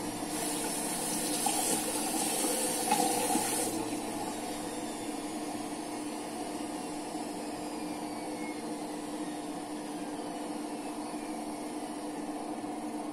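Water running for about three seconds near the start, then stopping, over a steady low hum that carries on throughout.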